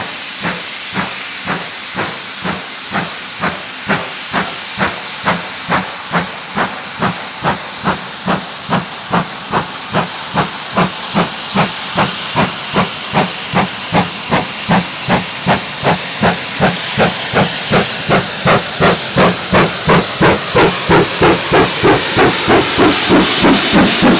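GWR Large Prairie 2-6-2T steam tank locomotive No. 4110 pulling a train, its exhaust chuffing in even beats about two a second. The beats quicken slightly and grow steadily louder as the engine approaches.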